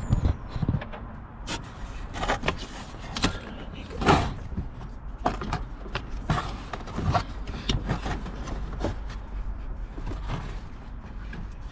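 Serpentine belt and engine-bay parts being handled: scattered light knocks, scrapes and rubs, the loudest scrape about four seconds in.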